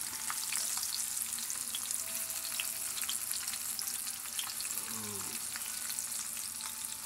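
Flour-and-cornmeal-coated fish fillets frying in hot oil in a cast-iron pan: a steady, dense sizzle full of small crackling pops.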